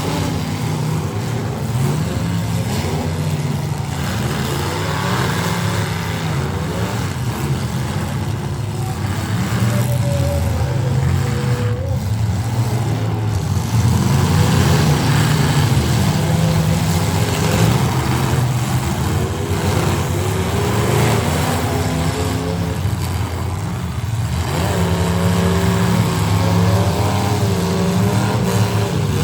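Engines of several full-size demolition derby cars running and revving at once, their pitches rising and falling over one another.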